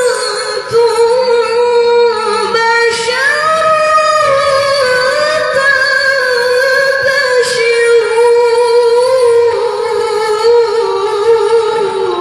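A woman's voice reciting the Quran in the melodic tilawah style, drawing out long held notes with wavering ornaments and slides in pitch.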